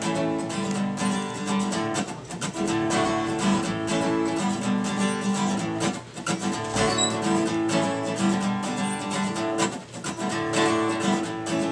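Solo acoustic guitar strummed, playing a steady chord pattern that pauses briefly twice between phrases.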